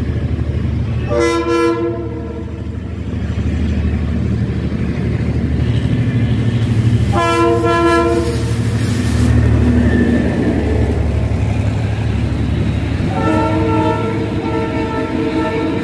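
Diesel passenger train passing close by, its engine rumbling deep and steady. The locomotive's horn sounds a short blast about a second in, another at about seven seconds, and a long blast from about thirteen seconds.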